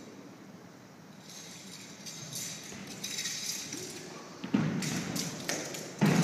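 Two sharp thuds on a carpeted wushu floor during a spear routine, one about four and a half seconds in and one near the end, with fainter movement sounds before them.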